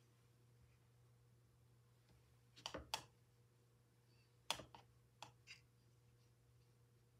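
Faint, steady low hum with a few light clicks or taps: a pair just before the middle and a quicker run of three or four a second or two later.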